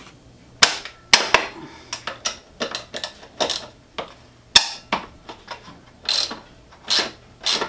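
Hand tools working on the motorcycle's frame bolts: irregular metallic clicks and scrapes, two or three a second, with one sharp click a little past the middle.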